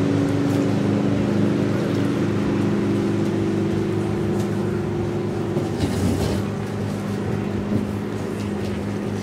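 Ski tow boat's inboard engine running steadily at speed as it pulls a slalom skier through the course, a steady drone. A brief rushing noise comes about six seconds in.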